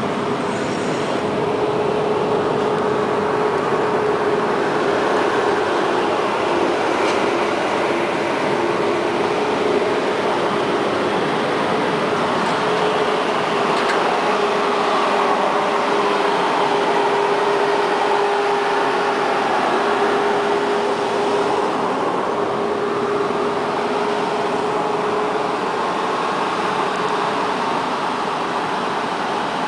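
Konstal 105Na two-car tram coming into the stop and standing at the platform. A steady hum is held throughout under a broad, even rushing noise.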